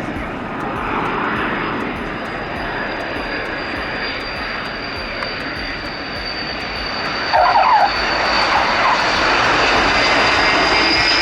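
Transall C-160 transport's twin turboprop engines on a low approach: a steady engine noise with a high whine, getting louder about seven seconds in as the aircraft comes closer.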